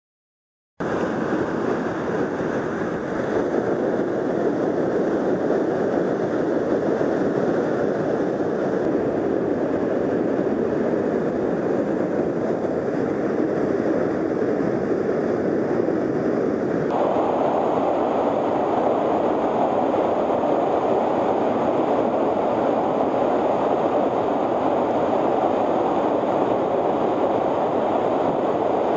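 Steady rushing roar of whitewater pouring over a rocky river drop and waterfall. It starts suddenly just under a second in, and its tone changes abruptly about 17 seconds in.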